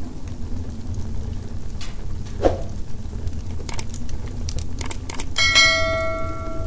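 Several sharp mouse-style clicks, then a bell-like notification chime that rings out for about a second near the end: the stock sound effect of a subscribe-button animation. A steady low rumble runs underneath, and a short falling tone comes before the clicks.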